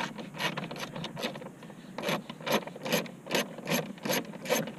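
A screw in a steel dashboard bracket being turned with a socket on an extension, giving a run of short rasping scrapes that come about four or five times a second in the second half.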